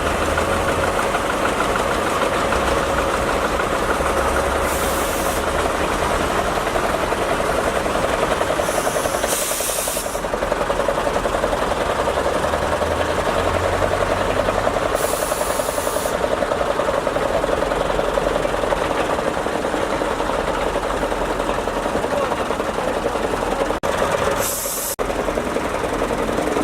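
Engines of repaired heavy equipment running steadily at idle with a knocking engine note, after being put back into service. Brief hisses come in a few times.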